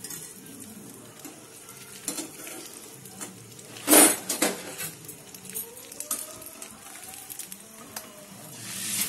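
An egg-coated paratha sizzling steadily in oil in a nonstick frying pan, with a loud clatter of a utensil against the pan about four seconds in and a metal spatula scraping under the edge near the end.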